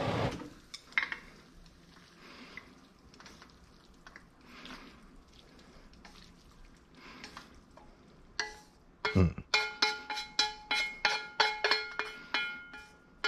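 Chopsticks tapping and scraping against a metal wok while picking up the last noodles, the wok ringing with each tap, about three taps a second through the second half, with one dull thump about nine seconds in. Before that, only faint soft sounds of noodles being lifted.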